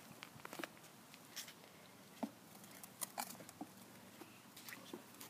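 Faint, irregular light clicks and scuffs from a toddler's plastic ride-on toy car being shifted and steered on concrete.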